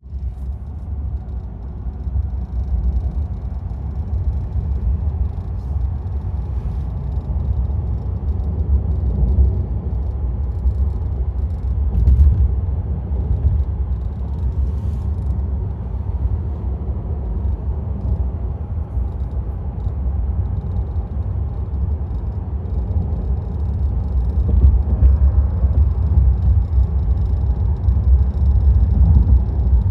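Low rumble of a 2026 Tesla Model Y Performance on the move, with faint, irregular ticks over it and one sharper click about twelve seconds in. The ticking is an annoying noise in the car.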